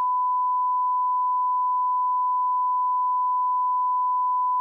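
Broadcast test tone: one pure beep held at a single steady pitch without change.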